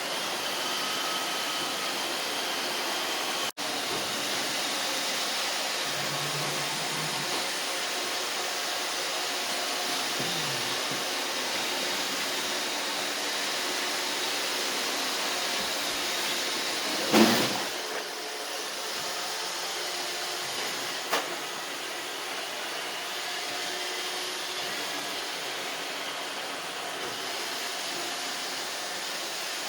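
Roomba robot vacuums running, with the steady whir of their vacuum motors and brushes. About halfway through there is one loud sharp knock, and a few seconds later a lighter click.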